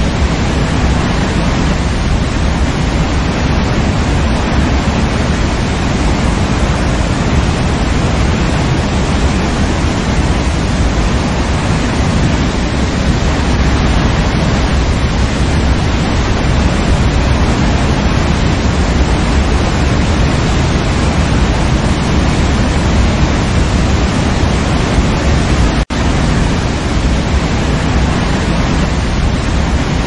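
Waterfall rushing steadily: a dense, even wash of falling water, heaviest in the low end, with a momentary break near the end.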